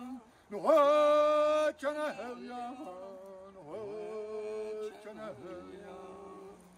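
A man singing a chant, holding long notes with a wavering pitch. The first phrase is loud, and from about two seconds in the singing goes on softer and lower.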